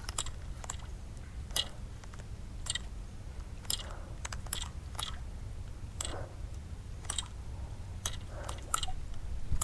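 Sharp, irregular clicks and ticks from the fishing tackle, about one or two a second, as a topwater stick bait is twitched back across the water, over a faint low rumble.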